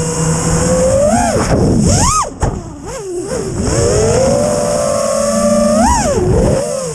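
FPV quadcopter's electric motors and propellers whining, the pitch rising and falling with the throttle. Sharp rises come about a second, two seconds and six seconds in, with a brief drop where the whine falls away and goes quieter in between.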